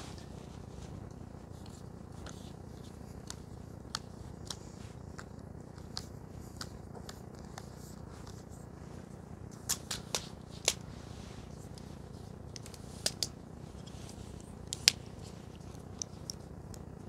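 Scattered sharp clicks and taps of a carbon-fibre travel tripod being handled and its legs adjusted, several in quick succession now and then, over a steady low background rumble.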